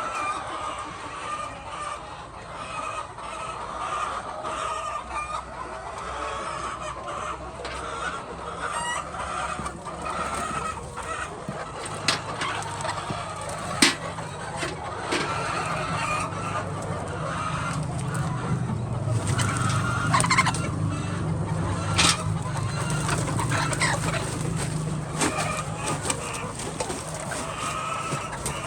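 Many chickens clucking together, with the odd rooster crow. About twelve seconds in, a steady low hum joins them, and a few sharp knocks stand out above the flock.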